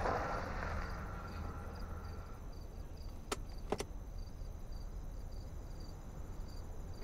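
Car engine running low and steady as the car pulls up, under a regular chirping of crickets at about two to three chirps a second. A soft whoosh fades over the first two seconds, and two short clicks come about three and a half seconds in.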